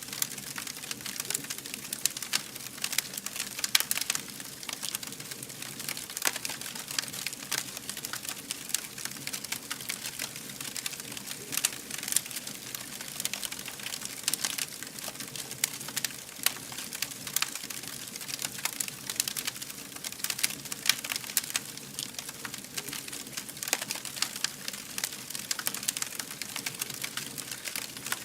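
Fire burning with dense, irregular crackling over a steady hiss, with sharper, louder pops here and there.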